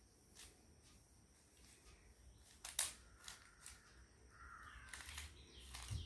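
A few faint, scattered clicks of a plastic 3x3 Rubik's cube's layers being turned by hand, the sharpest about three seconds in, against a quiet room.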